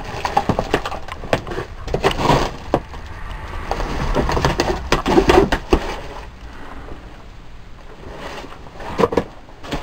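Irregular knocks, scrapes and clatter of old objects being moved and handled among cluttered shelves.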